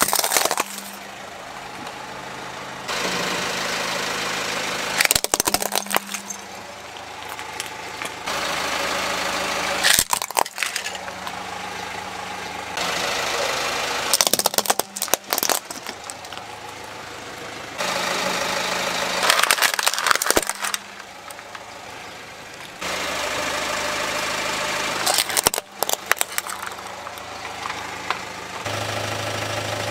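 A car engine idling while a tyre rolls slowly over plastic toys and crushes them, with sharp cracking and snapping spells every few seconds, cut between several objects.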